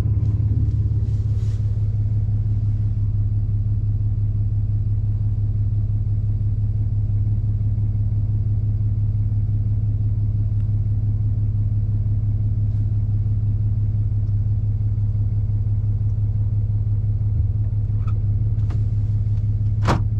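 Steady low drone of an engine running, unchanging throughout, with a few faint clicks near the end.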